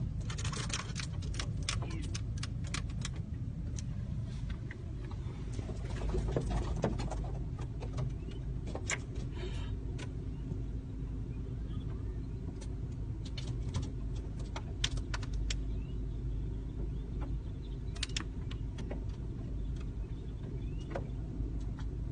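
Car engine idling, heard from inside the cabin, with many short, sharp clicks and calls from a large flock of birds swarming over and around the car.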